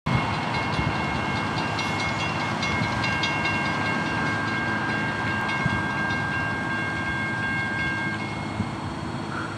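Level-crossing warning bells ringing in a quick repeating pattern as a CSX freight train approaches, over a low rumble. A steady high tone is held through most of it and stops about eight seconds in.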